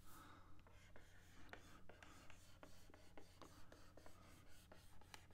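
Faint, irregular ticks and light scratching of a stylus drawing strokes on a drawing tablet, a few a second, over a steady low electrical hum.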